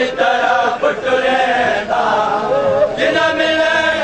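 Men's voices chanting a Punjabi noha, a Shia mourning lament, together in a slow, wavering melody, with short breaks between phrases.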